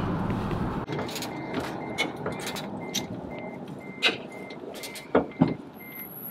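Metal clicks and knocks of a wrench on the drive shaft flange bolts as they are tightened, the loudest about four and five seconds in. Behind them, from about a second in, a steady electronic beep repeats about three times a second.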